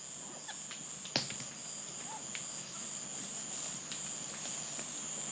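Insects in dry forest, a steady high-pitched chorus, with a single sharp click about a second in and a few faint ticks.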